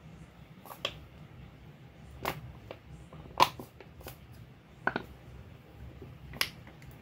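Scattered sharp clicks and taps of kitchen handling, about six in all, the loudest about three and a half seconds in, over a low steady hum.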